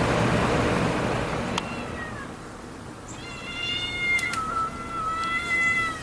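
A cat meowing: a short faint cry about two seconds in, then one long, drawn-out meow of about three seconds starting about three seconds in. A steady rushing noise like traffic fades out over the first second or two.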